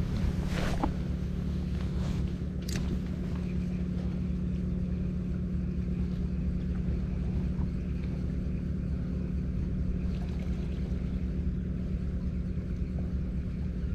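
A steady low motor hum, with a brief swish and click about a second in.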